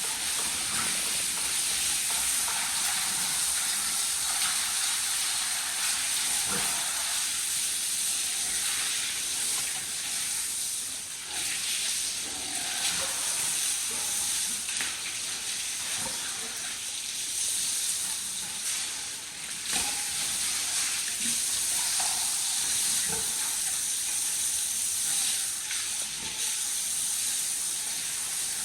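Steady hiss of a water spray washing down a pig pen.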